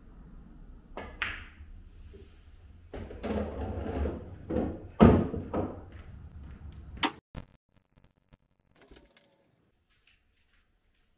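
A pool shot: the cue strikes the cue ball about a second in, followed by a few seconds of balls rolling and knocking on the table, the loudest knock about five seconds in. Two sharp clacks come near seven seconds, then the sound drops away.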